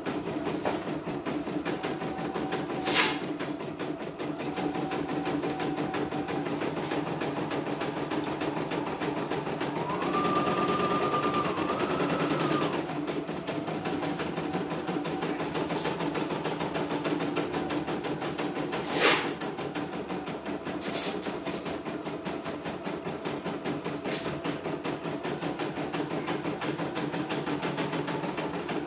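CNY computerized embroidery machine stitching a design, its needle going in a fast, even rattle. About ten seconds in, a brief whine rises and holds for two seconds or so. Two sharp clacks stand out, about three seconds in and again near nineteen seconds.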